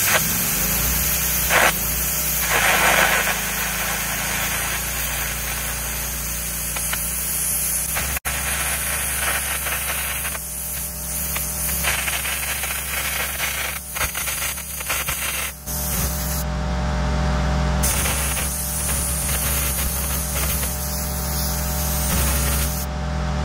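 Arc gouging steel: the gouging arc's steady, loud hissing crackle as the rod cuts a groove, breaking off briefly about two-thirds of the way through and again near the end. A steady low engine hum runs underneath.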